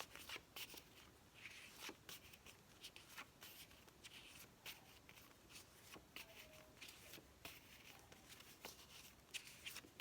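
Faint rustling and soft clicks of flashcards being handled and flipped one after another.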